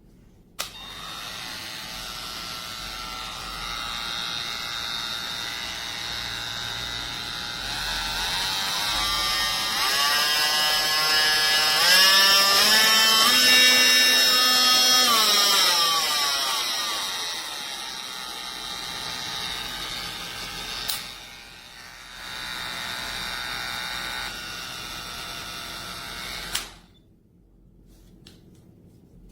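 Cordless oscillating multi-tool running. Its pitch climbs partway through, holds a few seconds, then falls back, with a brief dip near the end before it switches off suddenly.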